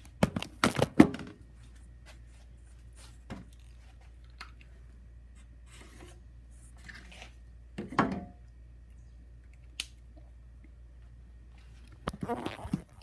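A wooden board being handled and shifted on a table saw: a quick run of knocks and scrapes at the start, a single knock now and then, and another scraping clatter near the end, over a low steady hum.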